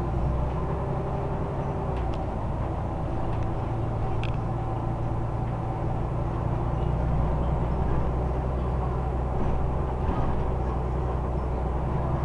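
Scania Omnidekka double-decker bus under way, heard from inside the passenger saloon: a steady low engine and drivetrain drone, with a couple of light clicks about two and four seconds in.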